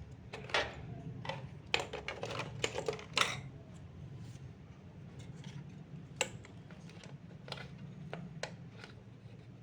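Small plastic-and-metal clicks and taps of an NVMe SSD being seated and secured in a motherboard M.2 slot by hand, a quick run of them in the first three seconds and a few single clicks later, over a low steady hum.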